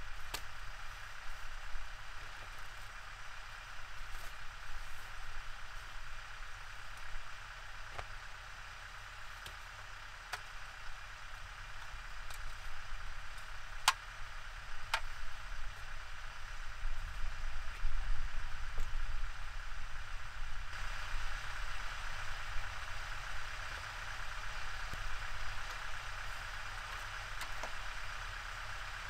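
Steady outdoor hiss with a low rumble under it, broken by a few sharp clicks and knocks from gear being handled at the back of a truck camper; the hiss grows a little louder about two-thirds of the way through.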